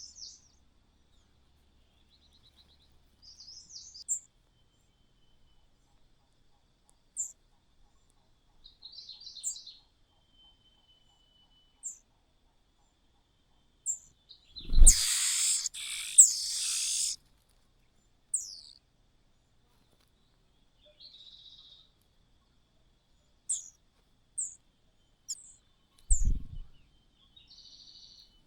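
Birds chirping: short, high chirps and calls at irregular intervals. About halfway through comes a loud, harsh burst of sound lasting about two and a half seconds, opened by a low thump, and there is another low thump near the end.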